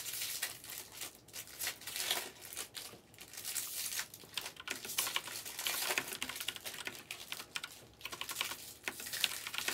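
Irregular light clicking of typing on a computer keyboard, mixed with crinkling and rustling from hands at work on a desk.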